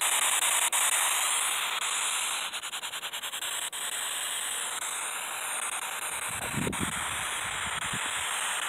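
Steady radio static hissing from a handheld spirit box, with a quick run of clicks about two and a half seconds in and a few short low sounds about two-thirds of the way through.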